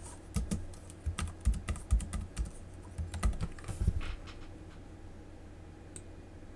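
Typing on a computer keyboard: a quick run of keystrokes entering an IP address, which stops about four seconds in, with one more keystroke near the end.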